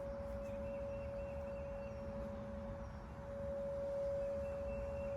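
Tornado warning siren sounding one steady tone during a siren test, getting a little louder about four seconds in.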